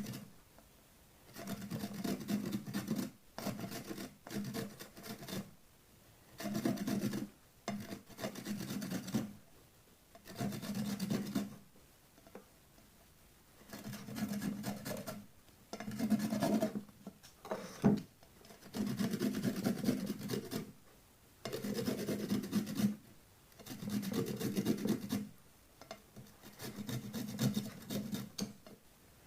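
Bitter kola nut being rubbed on a hand grater: rasping scraping strokes in runs of a second or two, with short pauses between them.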